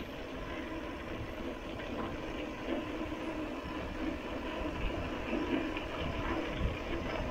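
Mountain bike rolling along a concrete road: a steady rumble of tyres and wind on the camera's microphone.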